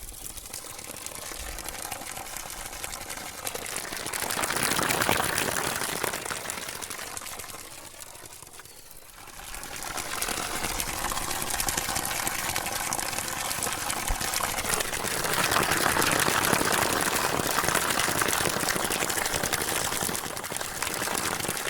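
Water fountain splashing continuously, swelling louder about four seconds in, easing off around eight to nine seconds, then louder again from about fifteen seconds.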